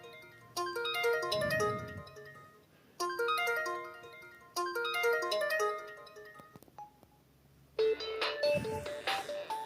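Samsung GT-B2100 phone ringtones: a short, bright polyphonic melody plays three times, each phrase fading away. After a brief pause near the end, a different, busier ringtone with sharper notes begins.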